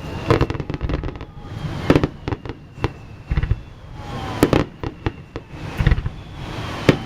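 Aerial fireworks shells bursting in quick succession, a string of loud bangs with crackle between them and thin whistling tones gliding in pitch.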